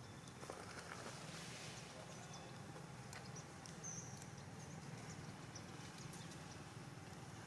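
Faint outdoor ambience: a steady low hum under a light hiss, with a few short high chirps and soft clicks around the middle.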